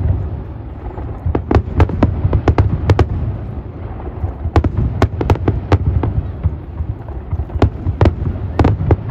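Fireworks display: aerial shells bursting in many sharp bangs and crackles in quick succession, over a continuous low din.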